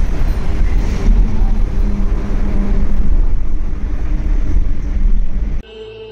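Loud, steady road-traffic rumble with some voices mixed in. About five and a half seconds in it cuts off suddenly to a quiet, held music tone.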